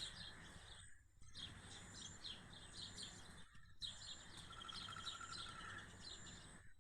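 Small birds chirping, many short calls overlapping, faint.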